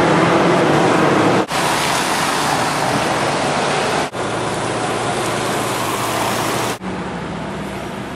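Road traffic on a wet street: a steady hiss of tyres on wet asphalt with engines running under it, broken by three brief dropouts.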